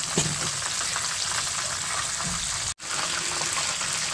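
Chicken pieces deep-frying in hot oil in a pan: a steady sizzle with fine crackling and popping, broken by an instant of silence just under three seconds in.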